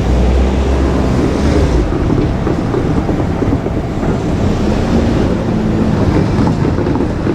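JR Kyushu 817 series electric train passing close by: a steady noisy rush of wheels on rail, with a heavy low rumble in the first two seconds.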